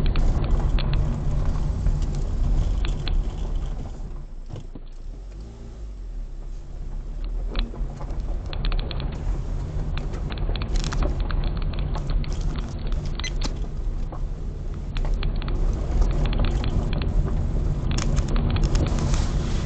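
Stock 2012 Mazda 3 driving fast on gravel, heard from inside the cabin: steady engine and tyre rumble with many sharp clicks and rattles from the loose gravel. It eases off and goes quieter for a few seconds about four seconds in, then builds back up.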